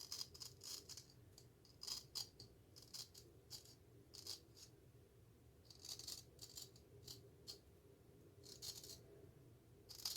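Straight razor scraping through stubble in many short, faint, crisp strokes, some single and some in quick clusters, one or two every second or so.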